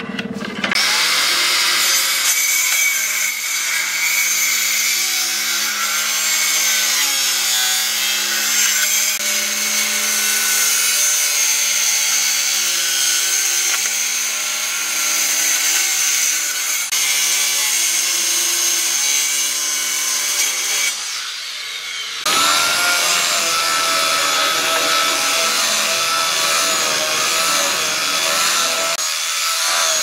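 Maktec circular saw running and cutting through a redwood panel for about twenty seconds, then stopping. A second or so later a belt sander starts up and runs steadily over the wood surface.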